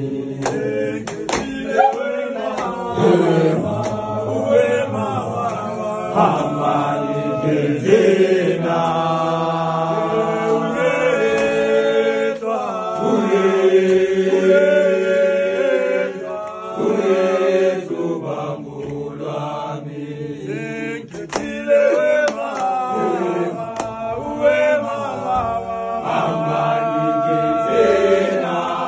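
A group of male footballers singing a gwijo, a Zulu-language chant song, together without instruments, several voices in harmony.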